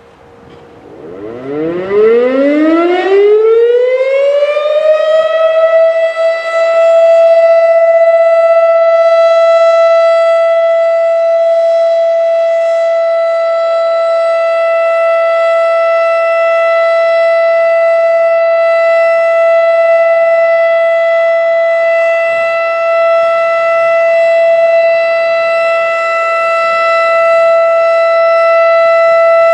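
Federal Signal Thunderbeam RSH-10A outdoor warning siren winding up from a standstill, its pitch rising over about five seconds, then holding one very loud steady tone, the steady alert signal of a siren test. The level swells and dips slightly as the siren head rotates.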